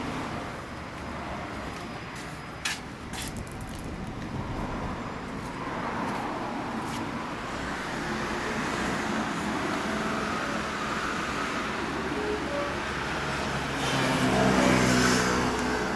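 Road traffic: a steady rumble with a few clicks about three seconds in, and a louder vehicle swelling up near the end.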